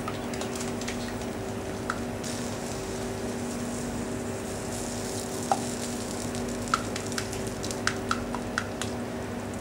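Wooden spoon stirring a thick velouté sauce in a stainless steel saucepan, with a few sharp knocks of the spoon against the pan, most of them in the second half, over a steady hum and hiss.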